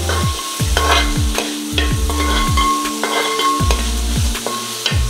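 A steel spoon stirs and scrapes sliced shallots, green chillies and curry leaves sizzling in coconut oil in a wide metal uruli; the shallots are being sautéed toward browning. Background music with a low, repeating beat plays underneath.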